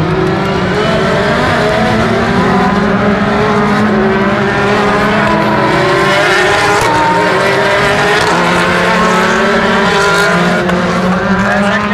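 A pack of WTCC touring cars racing past at high revs, several engines running at once with their pitches shifting up and down.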